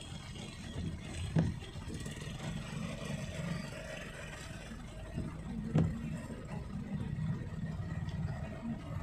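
Steady low rumble of car engines and slow traffic heard from inside a car on a flooded road, with two sharp knocks about four seconds apart.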